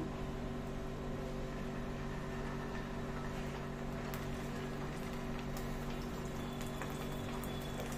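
Koi (climbing perch) frying in hot mustard oil in a frying pan: a low, steady sizzle with a few faint pops, over a steady low hum.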